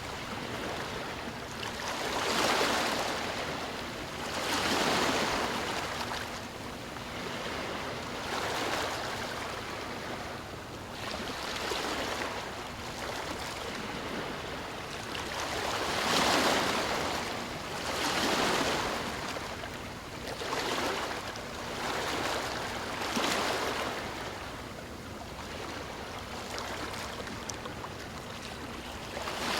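Sea waves washing in, each swell rising and falling away every two to three seconds over a steady hiss of surf.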